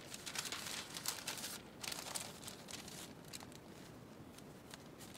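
Loose sheets of paper rustling and crinkling as they are flipped and laid on top of one another, busiest in the first couple of seconds and fainter after.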